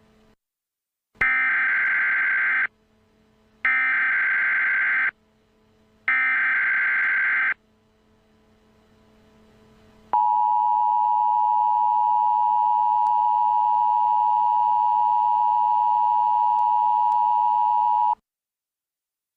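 Emergency Alert System tones: three short screeching bursts of the digital SAME header, evenly spaced, then the EAS two-tone attention signal held steady for about eight seconds and cut off sharply.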